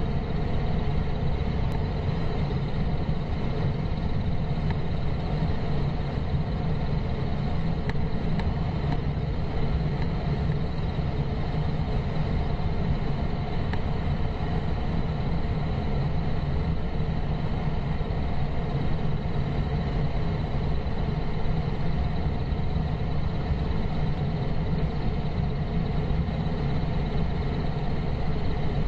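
Steady rumble and wind rush of a small single-engine plane, heard from a camera on its wing, as it lands on and rolls along a highway after an engine failure, its propeller windmilling. The sound holds even throughout, with no distinct touchdown thump.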